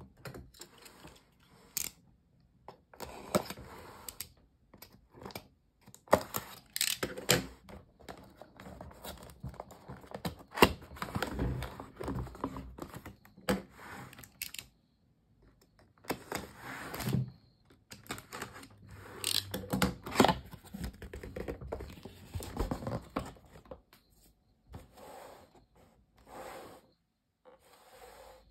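Cardboard retail box of a keyboard-and-mouse set being handled and opened: irregular scraping, tearing and crinkling with small knocks, with a short pause about halfway through.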